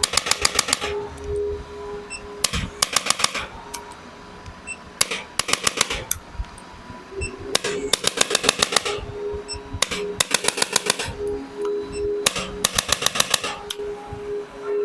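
A handheld chiropractic adjusting instrument firing rapid strings of clicking thrusts: six bursts of about ten clicks a second, each lasting about a second, every two to three seconds.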